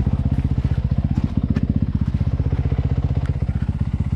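An engine idling steadily with a quick, even pulse, with a few light clicks over it.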